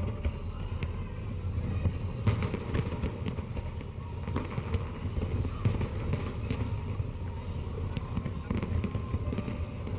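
Fireworks going off: a run of sharp pops and crackles over a steady low rumble.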